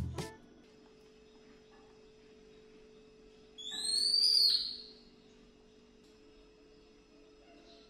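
Background music cuts off at the start, leaving a faint steady hum. About three and a half seconds in comes a short, high whistle-like sound effect that rises and then falls over about a second.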